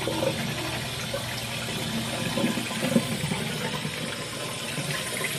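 Tap water running steadily into a sink.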